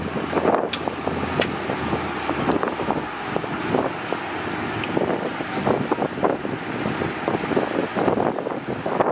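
Heavy earthmoving machinery working: an engine running with many irregular clanks and crunches, and wind buffeting the microphone.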